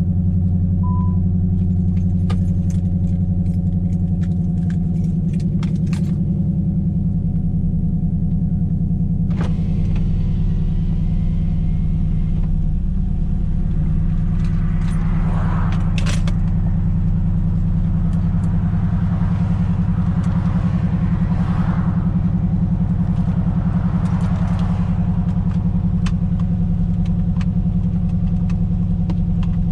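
Infiniti M45's 4.5-litre V8 idling steadily just after a cold start. Two short beeps sound at the very start.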